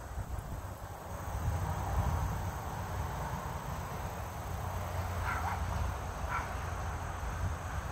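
Outdoor night ambience: a steady low rumble, with a few short distant animal calls, two in quick succession about five seconds in and another a second later.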